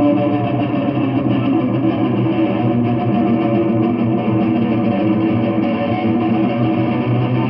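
Electric guitar being played, an unbroken stream of notes.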